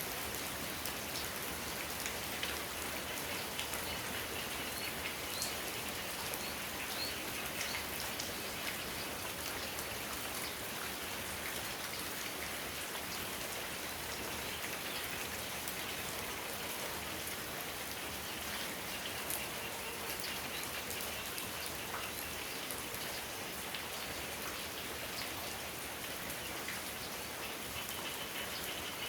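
Steady rain falling, with many separate drops ticking on hard surfaces through the even hiss.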